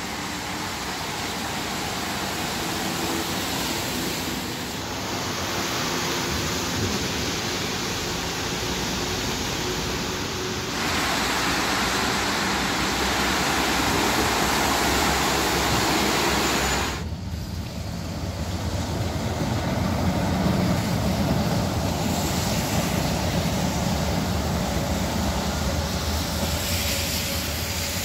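Traffic on rain-soaked streets: a steady hiss of rain and of tyres on wet road, with vehicles passing. The sound changes abruptly several times, and a low engine rumble grows stronger from about two-thirds of the way in.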